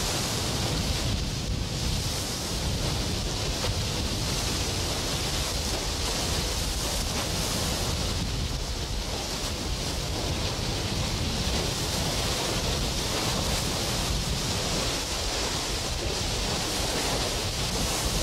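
Steady rush of sea surf and wind at the shoreline, with wind rumbling on the microphone.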